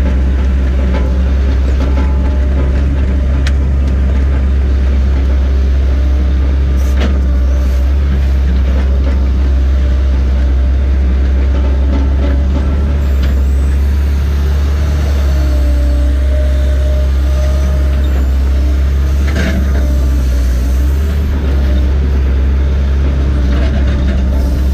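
Diesel engine of a tracked logging machine running steadily under load, heard from inside its cab as a loud, unchanging low drone. A few sharp knocks and clanks come through now and then as it travels.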